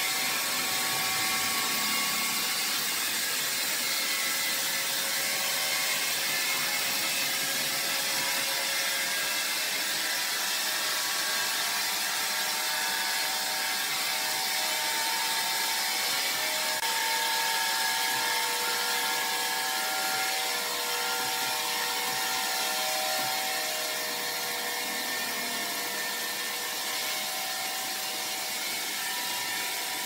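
Sawmill saw running and cutting through timber: a steady whine and hiss with shifting tones as the blade works through the wood, easing slightly about three-quarters of the way through.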